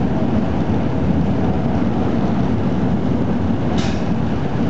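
Talbot railcar T44 running along the track, heard from inside its cab: a steady low rumble of the moving railcar. A brief sharper noise cuts in about four seconds in.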